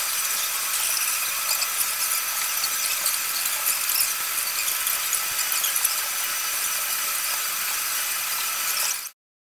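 Steady high-pitched squeal of tram wheels grinding on the rails, with light crackling, starting abruptly and cutting off just before the end.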